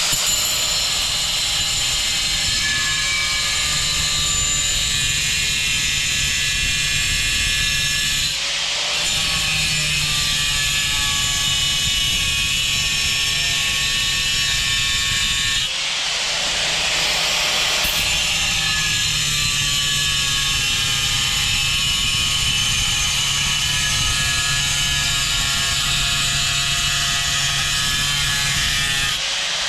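A power tool with a cutting blade running continuously with a high whine as it cuts through tile, briefly dipping and recovering about three times.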